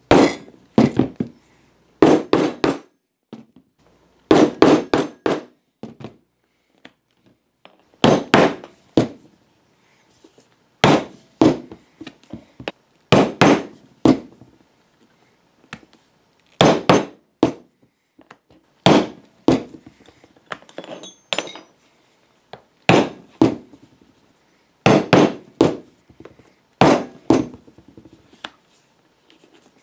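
Poly-headed leather maul striking a metal stamping tool into vegetable-tanned leather: sharp knocks in short groups of two to four, a group every two to three seconds, as a scalloped border is stamped.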